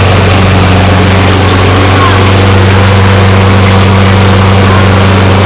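Toro Recycler lawnmower's Briggs & Stratton engine running loud and steady at an even speed after a cold start.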